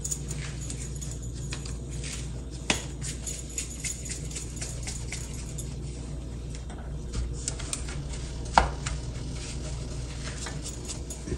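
Light clicks and taps as hands work a ball of dough in a tin of flour, with bangles clinking, over a steady low hum. One sharper, brief sound stands out about two-thirds of the way through.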